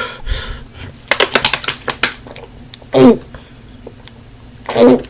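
A person hiccuping twice, two short loud 'hic' sounds about two seconds apart. Before them comes a brief patter of small clicks.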